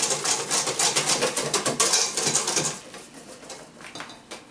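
A wire whisk beating thin Yorkshire pudding batter in a stainless steel bowl, the wires ticking rapidly against the metal, several strokes a second. The whisking stops a little under three seconds in, leaving only a few faint handling sounds as more flour is tipped in from a paper bag.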